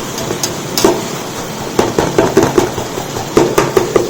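A metal ladle stirring onion-tomato masala in a large biryani pot, knocking and scraping against the vessel. A few scattered knocks give way to quick strokes about five a second from about two seconds in, over a steady frying hiss. The masala is starting to catch on the bottom of the pot.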